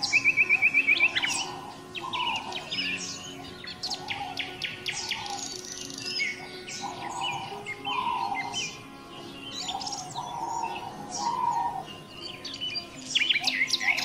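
A mixed chorus of songbirds chirping and whistling, with overlapping calls throughout. It opens with a loud, fast trill of about ten even notes in the first second.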